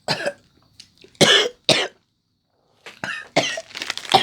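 A person coughing in short bursts, a few spaced coughs and then a quicker run of them, set off by the spicy seasoning dust of coated hot peanuts catching in the back of the throat.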